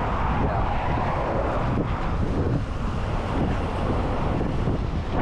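Wind buffeting the microphone of a camera on a moving bicycle: a steady rushing with a low rumble underneath.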